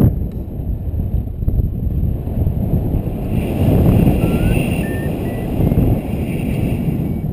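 Wind rushing over the microphone in flight, a low gusty rumble, with a brief knock at the very start. From about four seconds in, a paragliding variometer begins beeping, its pitch stepping up: the signal that the glider has entered rising air.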